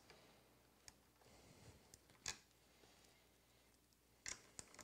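A few light metallic clicks and taps from a RAM mount U-bolt being fitted around a motorcycle handlebar by hand, against near silence. There are four clicks in all, spaced out, the last two close together near the end.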